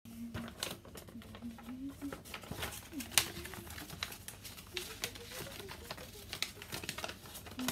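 Sheet of paper rustling and crinkling as it is handled and folded by hand, with scattered small clicks and a sharper snap about three seconds in.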